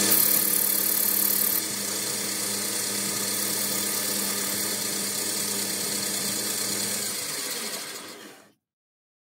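Boxford lathe running steadily with a hum while its tool turns down the outside diameter of a brass rod; the sound dies away about eight seconds in.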